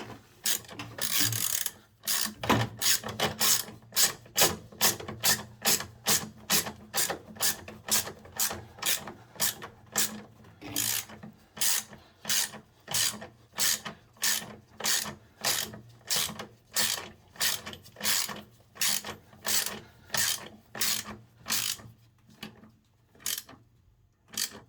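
Ratchet wrench clicking in steady back-and-forth strokes, about two a second, tightening the fastening of a washing machine's motor into its plastic mount; the strokes stop near the end.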